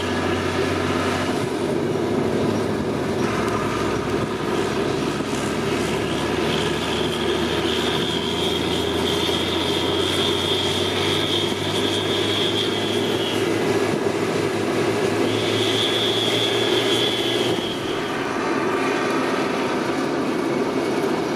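Fendt Favorit 824 tractor's turbocharged six-cylinder diesel running steadily, its turbo whistling high. The whistle fades in and out, holding for several seconds at a time twice.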